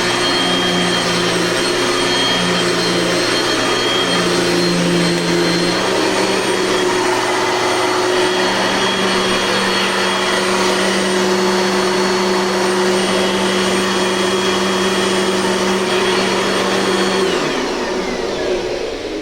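Classic Dirt Devil vacuum cleaner's motor running steadily with a high whine, then switched off about 17 seconds in, the whine falling as the motor spins down. The machine is in good working order, with nothing wrong with it.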